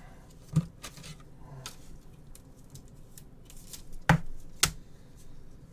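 Trading cards being handled on a table: light rubbing and small clicks, with sharper knocks about half a second in and twice about four seconds in.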